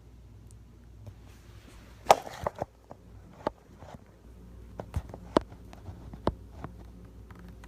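A loud clatter about two seconds in, followed by a string of sharp, separate knocks or thumps.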